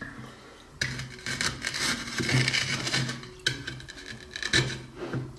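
Warm water being poured and splashing over a block of ice, with a few knocks and clatters against the ice.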